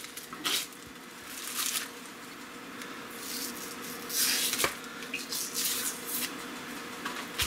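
Paper wrapping around a piece of doktorskaya sausage rustling and crackling as it is handled, in several short bursts, with a sharp click about four and a half seconds in.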